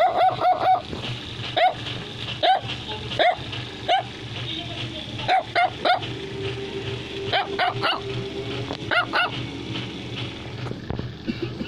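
Chinese Crested dog barking in short, high-pitched yaps: a quick run at the start, single barks about a second apart, then quick bursts of two or three a little past halfway and again near the end. A steady low hum runs underneath.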